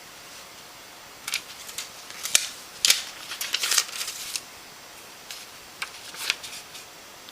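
Irregular sharp clicks and short rustles in two clusters, the first about a second in and the second near the end, over a steady hiss.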